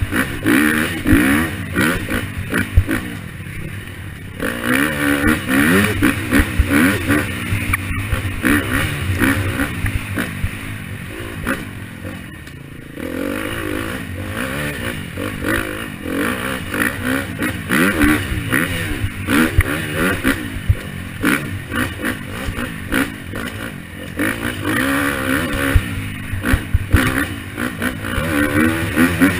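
KTM 250 dirt bike engine revving up and down over and over at trail speed. The throttle closes briefly about four seconds in and again around twelve seconds in.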